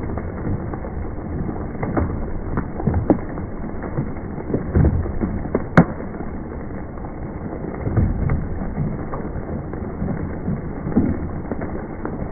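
Hailstones pelting down: a steady hiss of falling hail, broken by frequent sharp knocks and one loud crack about six seconds in.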